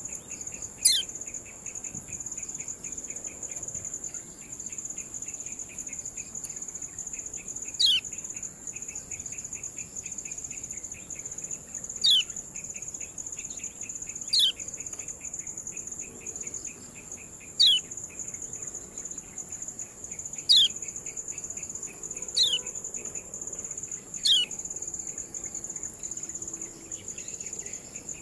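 Kecial kuning (lemon-bellied white-eye) giving its sharp, short 'ciak' call about eight times at irregular intervals, each a quick downward-falling note. Under it runs a steady high insect whine and a fast insect ticking.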